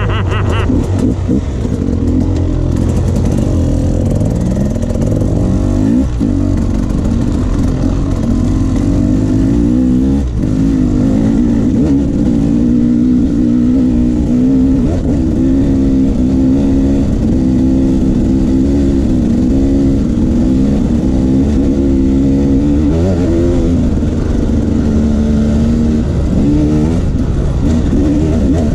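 Off-road motorcycle engine running continuously on a trail ride. Its note dips and climbs back every few seconds as the throttle is rolled off and on.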